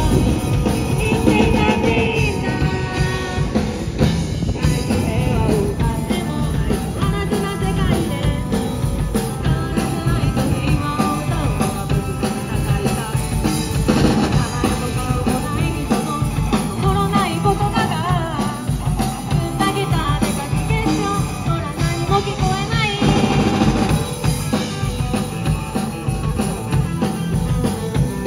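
Live rock band playing a song on electric guitar, electric bass and drum kit, with a steady drum beat.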